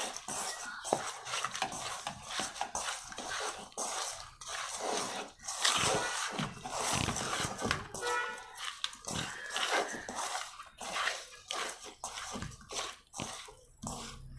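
Hands mixing pieces of pomfret fish with spice powder and salt in a stainless steel bowl: irregular wet squishing and rubbing, with now and then a knock against the steel.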